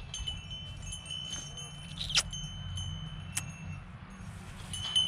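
Small metal bell ringing in a few light strikes: about two seconds in, again a second later, and once more near the end. Each strike leaves a clear, lingering high tone.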